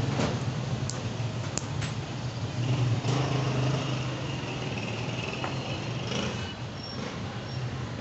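Steady low motor hum, with a few light clicks.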